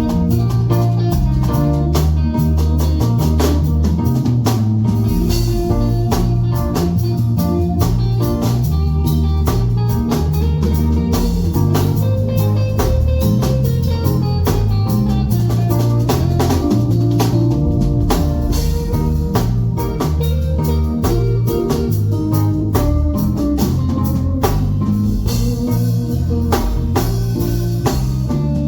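A live band playing a sound check: guitar over a drum kit with steady beats, with no singing.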